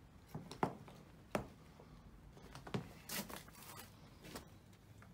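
A few sharp knocks, then a short crinkling, scraping rustle of debris and litter being disturbed, with a small room's echo.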